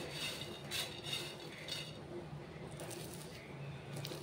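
Dry-roasted small prawns rustling and scraping against a pan as they are moved around by hand. There are several quick crisp scrapes in the first two seconds, then a fainter, steadier rustle.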